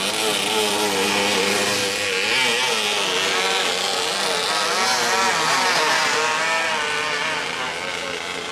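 A racing Thai longtail boat's engine running flat out as the boat speeds by, its pitch wavering up and down over a hiss of spray. It eases off slightly near the end.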